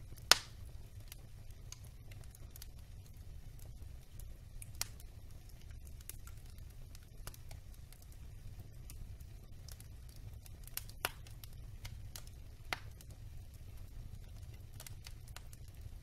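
Wood logs burning in an open fireplace, crackling with many small snaps over a low steady rumble of the flames. A sharp pop just after the start is the loudest, with further pops around five, eleven and thirteen seconds in.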